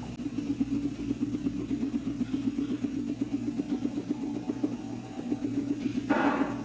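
Guinea pig purring: a continuous low, rapidly pulsing rumble of the kind made during a rumblestrut. A short noisy burst near the end.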